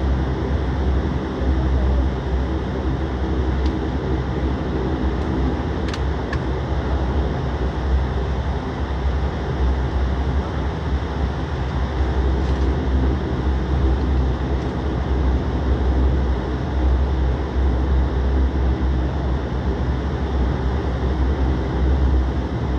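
Airliner cabin noise heard from a window seat: the engines' steady hum and deep rumble as the plane rolls along the runway on the ground.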